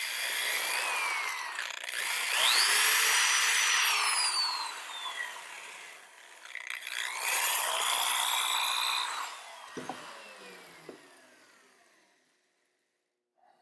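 Electric drill with a wire wheel brush cleaning the end of a Model T magneto field-coil winding: the motor whines up to speed, scrubs the winding, then winds down, twice.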